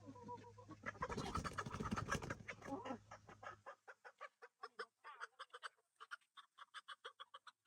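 Chickens clucking and squawking, busiest and loudest in the first three seconds, then a run of quick, repeated clucks. A low steady hum stops about three and a half seconds in.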